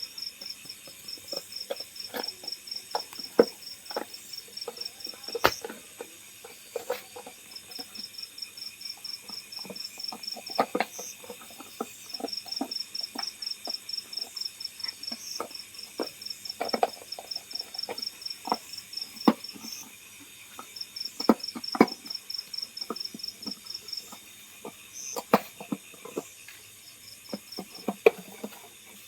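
An insect chirping in long trains of rapid high-pitched pulses that break off and start again every few seconds. Scattered sharp clicks and knocks run through it and are the loudest sounds.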